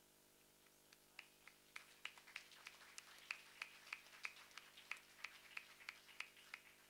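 Sparse applause: a few people clapping, led by one steady clapper at about three claps a second. It starts about a second in and stops near the end.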